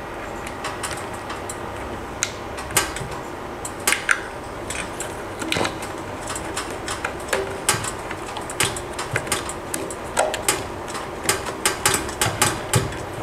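Hands screwing the cap of a plastic cable gland down by hand around a cable: a string of small, irregular plastic clicks and taps, coming more often in the second half, over a steady background hiss.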